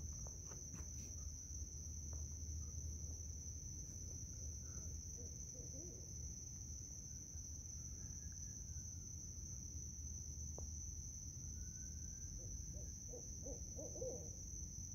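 Barred owls hooting some way off: a few faint hoots around the middle, then a quick run of several hoots near the end, over a steady high-pitched insect drone.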